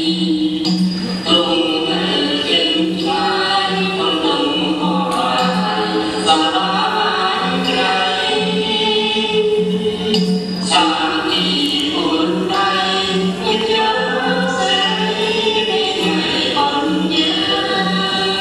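Cambodian dance music: singing over a steady low drone, with melodic lines that bend and hold.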